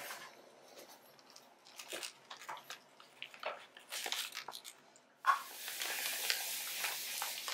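Close-up eating sounds: biting into and chewing a toasted sandwich, with small crackles and clicks from the crust and its paper wrapper. About five seconds in, a steady hiss comes in under the chewing.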